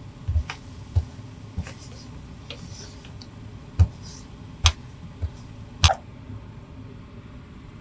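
A plastic spatula tapping and scraping a nonstick frying pan while stirring soft scrambled eggs: a string of sharp irregular taps, about one a second, stopping about six seconds in.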